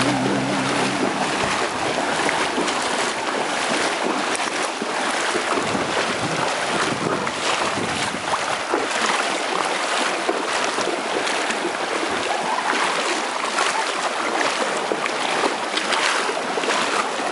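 Several horses wading through a shallow river, their legs churning the water in a steady rush of splashing.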